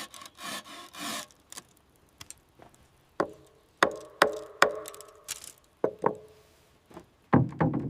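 Woodworking by hand: a few rubbing strokes on wood, then scattered sharp knocks and taps on wood, each with a short ring, with a quick cluster of knocks near the end.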